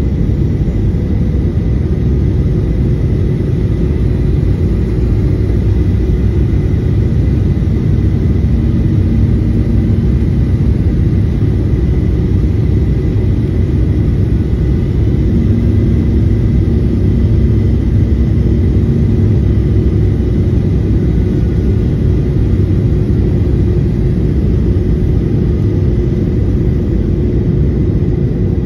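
Cabin noise of a Boeing 737-800 on approach, heard near the wing: a steady, loud rumble of its CFM56-7B turbofan engines and rushing air, with a few thin steady whining tones over it. A lower hum comes in briefly twice, about a third and about halfway through.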